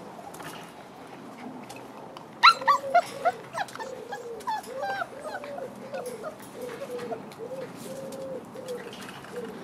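Six-week-old puppies whining and yelping: a burst of sharp high yelps a couple of seconds in, then a run of short whimpers one after another.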